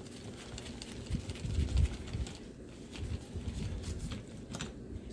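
Hand work on an RC truck's front end: irregular low handling thuds and light clicks of a tool and small parts as screws and pieces are taken off. The heaviest thud comes about a second and a half in.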